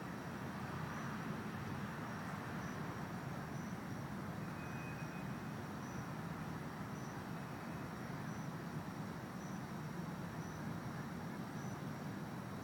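Steady low rumble of distant city traffic, with a faint thin high whine running throughout.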